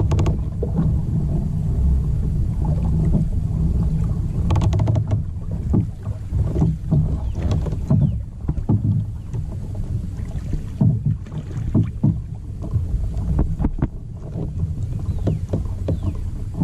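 Choppy lake water slapping against the hull of a Native Titan 10.5 pedal kayak, over a steady low rumble. Scattered knocks come from the boat as the angler shifts and stands up.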